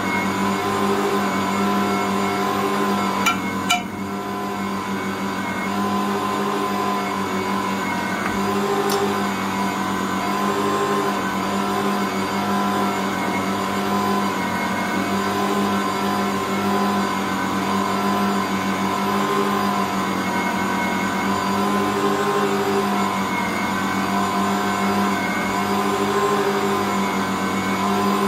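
Ankarsrum 6230 stand mixer running steadily under load as its rotating bowl and roller knead a bread dough, the hum swelling slightly about every two seconds. Two sharp clicks a little over three seconds in.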